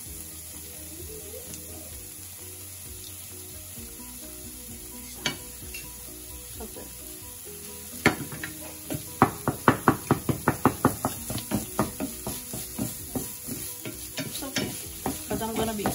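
Ground beef and onions sizzling quietly in a nonstick frying pan, with a single click about five seconds in. From about eight seconds in, a wooden spatula stirs and breaks up the meat, scraping and knocking against the pan in quick strokes, about four a second, that ease off near the end.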